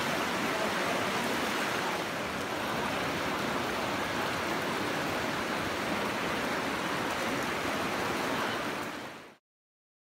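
Steady rush of the Virgin River's shallow water flowing over rocks in a narrow canyon, fading out to silence about nine seconds in.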